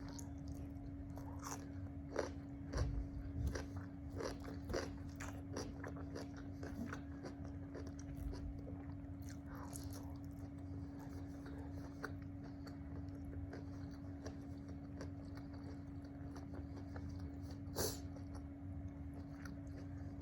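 Close-miked eating sounds: a person biting and chewing crunchy food, with irregular crunches and mouth clicks that are busiest in the first few seconds. A steady low hum runs underneath.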